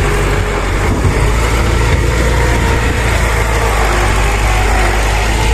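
Tractor engine running steadily at an even, low hum.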